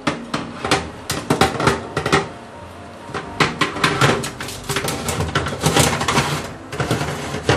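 Foil-lined metal baking tray clattering and scraping against the oven rack as it is pushed into the oven, with aluminium foil crinkling; a rapid string of clicks and knocks, busiest around the middle.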